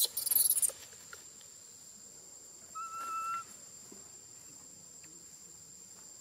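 A brief loud rustle at the start, then, about three seconds in, a baby macaque's single thin, level coo lasting about half a second, over a steady high-pitched insect drone.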